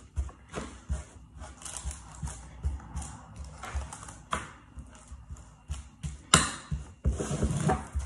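The back of a tablespoon pressing and tapping a crumbly biscuit-and-condensed-milk base down into a paper-lined metal baking tray: irregular soft thuds and scrapes, with a sharper knock about six seconds in.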